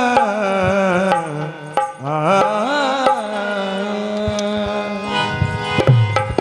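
Opening of a qawwali: a held, wavering melodic line over a steady drone, with tabla strokes coming in about five seconds in.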